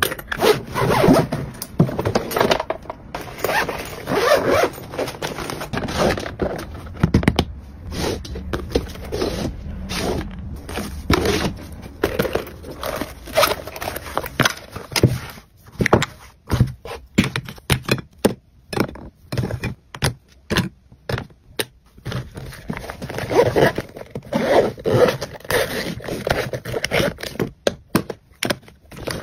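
Close-up packing sounds: zippers and plastic cases being handled, with scraping and rustling. Midway comes a run of sharp separate clicks and taps as makeup compacts and cases are set into a clear zip pouch.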